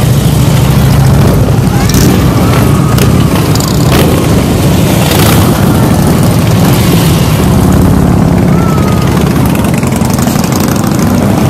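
A line of big cruiser and touring motorcycles riding slowly past one after another, their engines running in a steady, loud, deep rumble.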